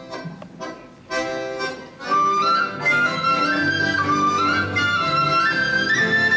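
Accordion playing a Polish carol (kolęda) tune with the band: a few short chords in the first second, then a held chord, and from about two seconds in a stepping melody over sustained chords.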